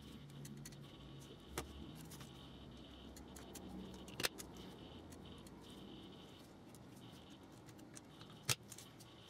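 Light plastic clicks and handling noise as weathered bogies are fitted back onto an OO-scale Class 47 model locomotive chassis. Three sharper clicks stand out: about one and a half seconds in, a quick double just after four seconds, and one near the end.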